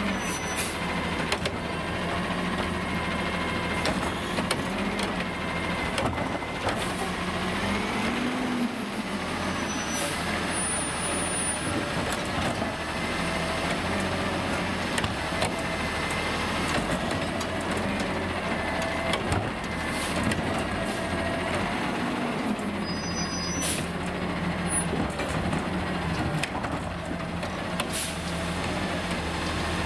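Heil Curotto-Can garbage truck's diesel engine running with its hydraulics working, a whine that rises and falls over the steady engine note. Several brief sharp sounds break in, among them air-brake hisses.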